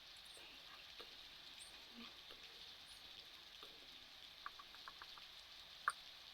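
Faint, steady rain hiss with scattered small ticks, more of them in the second half and the sharpest near the end.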